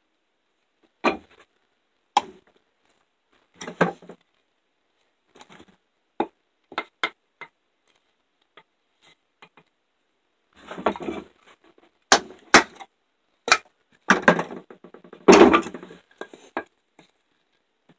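A fixed-blade knife is batoned down through a board: sharp wooden knocks at irregular intervals, a few seconds apart at first. They crowd into a run of heavier strikes with longer cracking stretches in the last third, as the board splits.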